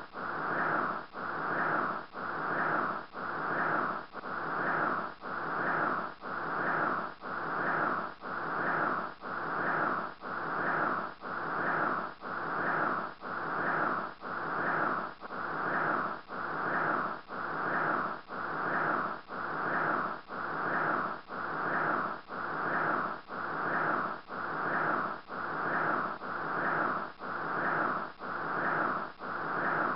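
Rhythmic whooshing noise that swells and fades about once a second, perfectly even and unchanging, a looped background track.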